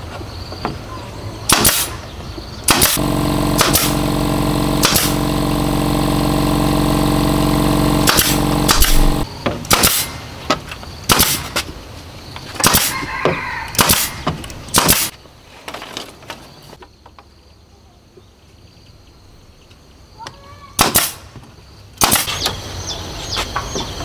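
Yakima pneumatic brad nailer firing nails into bamboo slats: a string of sharp shots, some in quick pairs. A steady motor hum runs under the first several seconds and stops about nine seconds in. After a short lull, a couple more shots come near the end.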